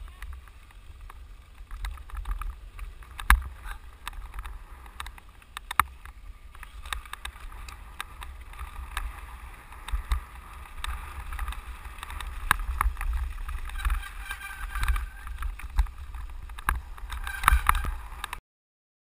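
Mountain bike descending a rough gravel trail, heard from a handlebar-mounted camera: low rumbling from the tyres and wind on the microphone, with rattling and frequent sharp knocks as the bike goes over bumps. The sound cuts off suddenly near the end.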